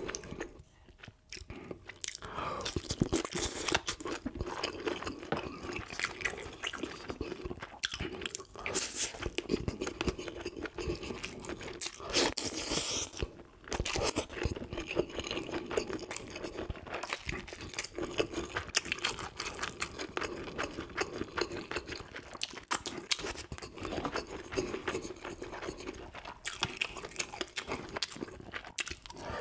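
Close-miked crunching and chewing of a whole pan-fried dried yellow croaker (gulbi), bones and head eaten along with the flesh, with a steady run of sharp crunches.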